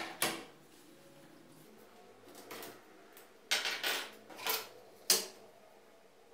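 Clear acrylic quilting ruler being picked up and set down on a tabletop while a denim strip is handled: a few short clacks and rustles, the sharpest about five seconds in.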